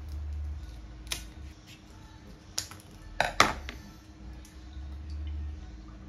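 A paper milk carton being handled and opened: a few sharp clicks and crinkles, the loudest a close pair of crackles about three seconds in.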